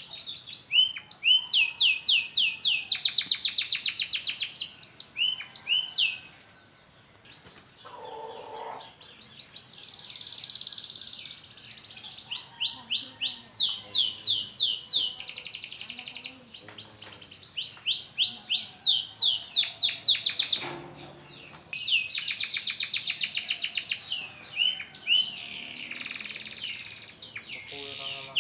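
Canary singing: long phrases of fast, repeated trilled notes, each sweeping in pitch, with brief pauses between phrases. It is a bird just out of its moult, practising its song again.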